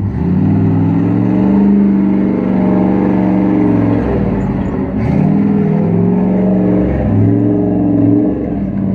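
Old four-wheel-drive wagon's engine revving hard under load as it climbs a rock ledge. It rises in pitch, drops back and revs up again several times, about four, five and seven seconds in.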